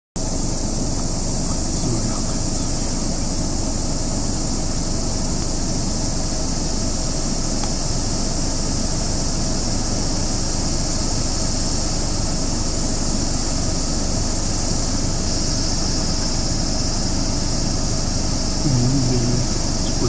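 Steady outdoor background noise: a low, constant rumble of the kind made by distant traffic or wind, under an unbroken high hiss. No bird calls stand out.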